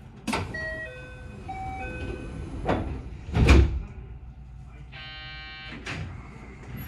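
Passenger train doors closing before departure: a click and a short run of chime tones, then two heavy knocks about three seconds in as the sliding doors shut, the second the loudest with a deep thud. About five seconds in a short steady buzzer sounds, followed by a click.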